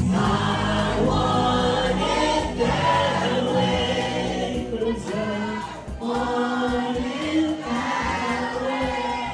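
Background music with a choir of voices singing long, held phrases.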